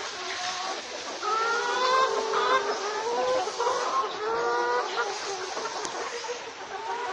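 A flock of chickens on a poultry farm calling and clucking, with many voices overlapping into a steady din.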